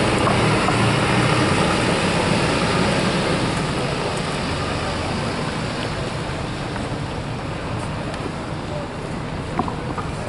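Mercedes-Benz Citaro single-decker bus driving past and away, its engine hum fading over the first few seconds and leaving a steady wash of traffic noise.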